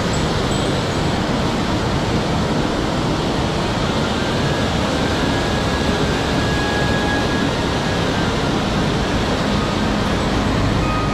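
Small waterfall on a mountain stream rushing steadily into its pool, close by and loud.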